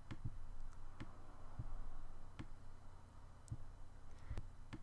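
Computer mouse clicking: about eight separate sharp clicks at uneven intervals as points of a Bezier curve are placed one by one, over a faint low hum.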